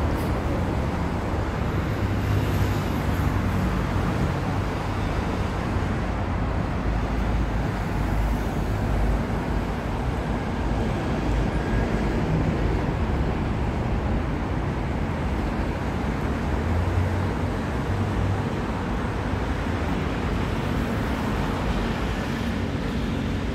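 Steady city street ambience dominated by the continuous noise of road traffic, heaviest in the low end, with no distinct events.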